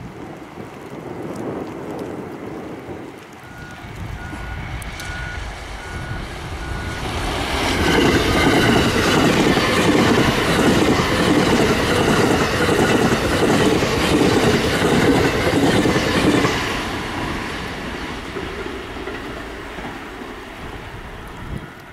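A JR West limited-express electric train approaches, passes close at speed from about eight seconds in with a rhythmic clatter of wheels over the rail joints, then fades away as it recedes.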